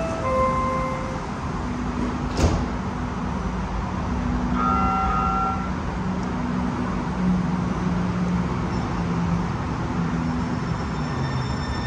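Sound Transit Link light rail train standing at the platform with a steady low electric hum. A two-note chime sounds just as it begins, a sharp click comes about two and a half seconds in, and another short chime about five seconds in. Near the end a faint high whine comes in, just before the train pulls away.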